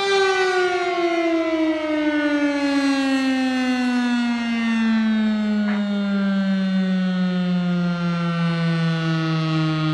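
Fire engine's mechanical siren winding down, its pitch falling slowly and steadily throughout.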